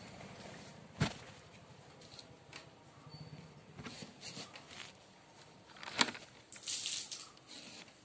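Cloth rustling as a striped garment is handled and folded by hand, with two sharp knocks, about a second in and about six seconds in, and a brief burst of rustling just after the second knock.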